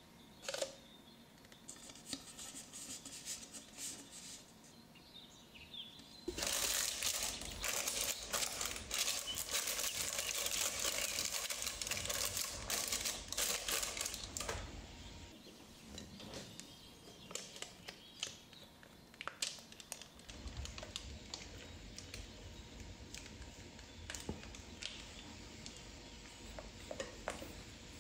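Baking paper crinkling and rustling as it is pressed and folded into a round cake tin, dense and loudest for about eight seconds starting a quarter of the way in. Softer scattered clicks and handling taps follow.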